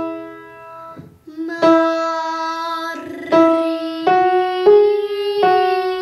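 A young girl singing a vocal exercise on the EE vowel of 'Maria', holding one long note over piano chords struck about five times. Near the end she slowly bends the note downward.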